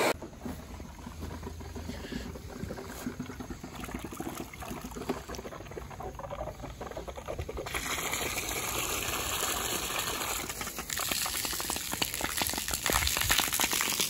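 Water gushing from the end of a garden hose and splashing into a bucket and onto pavement, louder from about halfway in. It is the outflow of a water heater tank being pumped down to flush sediment from its bottom.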